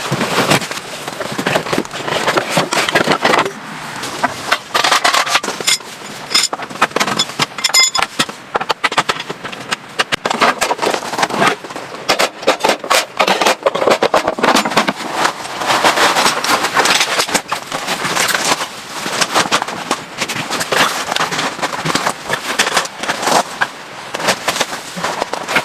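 Heavy rain pattering on the tent and car, a dense, irregular crackle of drops.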